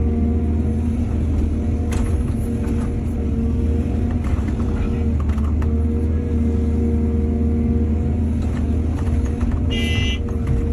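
Heavy earthmoving machinery engine running steadily, with a few sharp knocks about two seconds in and a brief high-pitched tone near the end.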